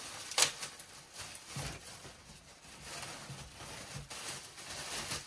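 Plastic packaging bag crinkling and rustling as a garment is pulled out of it, with one sharp snap about half a second in.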